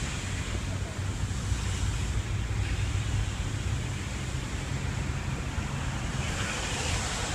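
Wind buffeting the moving camera's microphone as a low rumble over a steady hiss of rain and wheels on the wet path. The hiss grows brighter near the end.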